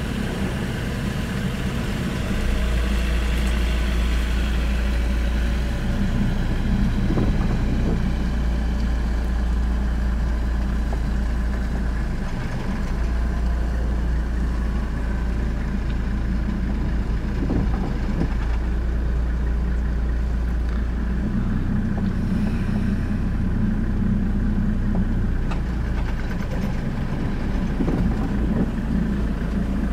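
Vehicle engine running at low revs, heard from inside the cab as the vehicle reverses slowly. A steady low drone deepens and eases in a few long stretches.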